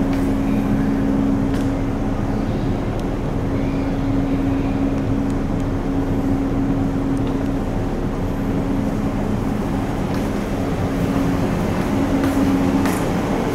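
Steady low drone of a car ferry's engines and machinery heard inside the passenger deck, a constant hum with two held tones.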